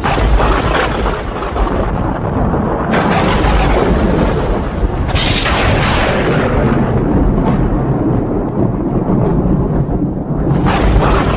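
Thunder: a sudden loud clap, then continuous deep rumbling, with further sharp cracks about 3 and 5 seconds in and again near the end.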